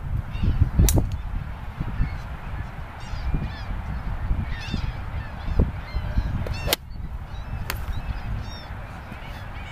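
Golf iron striking a ball off a driving-range mat: a sharp click a little under seven seconds in. Birds call repeatedly in the background over a low rumble of wind on the microphone.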